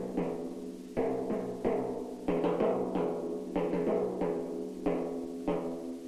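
A pair of timpani struck with soft-headed mallets in a steady rhythm, about two strokes a second, each stroke ringing on into the next.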